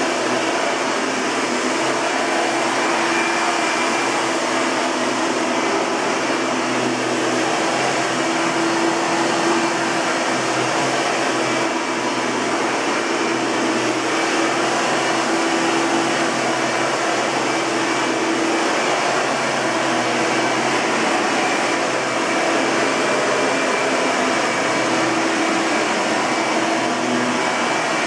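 Hoover TurboPower 4000 Elite upright vacuum cleaner running steadily: an even rush of air with a constant motor hum underneath.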